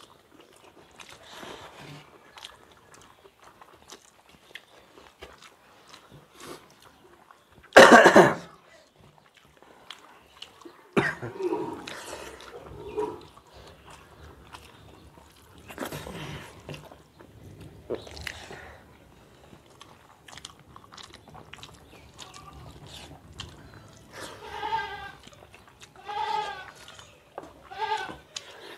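A goat bleating several times, the loudest call about eight seconds in and three shorter, wavering calls near the end, over faint sounds of hands mixing rice on steel plates and chewing.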